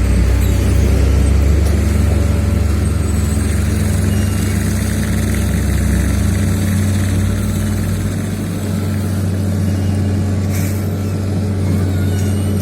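Heavy diesel engine running steadily with a low hum, its deepest rumble dropping away about two-thirds of the way through.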